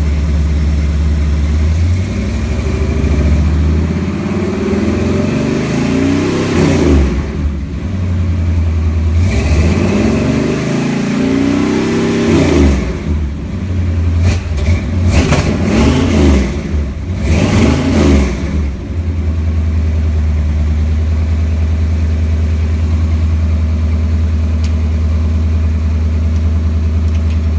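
1958 Chevrolet Apache pickup's engine running through headers and newly fitted mufflers and tailpipes: idling, then revved up and let back down about five times, then settling back to a steady idle for the last several seconds.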